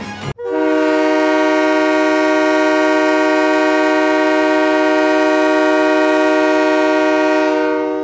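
Diesel locomotive's multi-chime air horn sounding one long, steady blast, several notes held together as a chord.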